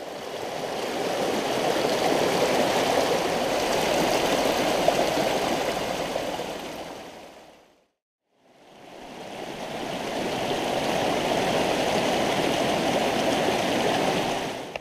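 Mountain stream flowing, a steady water noise that fades out about halfway through. After a brief moment of silence it fades back in, then cuts off abruptly at the end.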